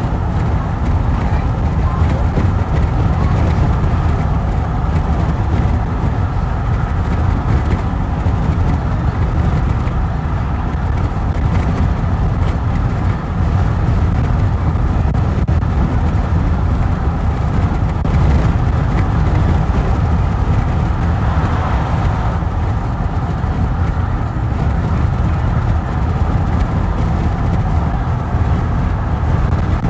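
Steady road and engine noise inside a moving car's cabin: a constant low rumble from the tyres and engine.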